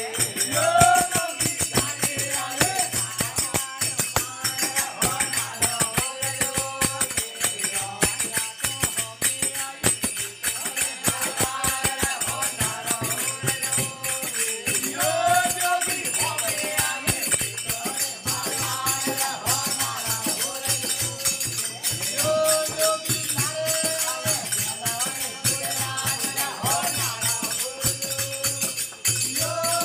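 A Rajasthani desi veena bhajan: a devotional song sung over a steady low drone, with fast jingling, rattling percussion keeping time.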